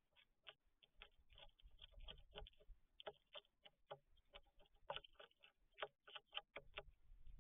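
A marten feeding in a wooden bird feeder, crunching sunflower seeds: faint, crisp, irregular clicks, several a second.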